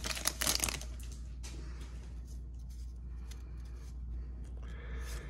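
Foil wrapper of a Topps baseball card pack crinkling as it is pulled off, in the first second. Then faint rustling as the stack of cards is handled.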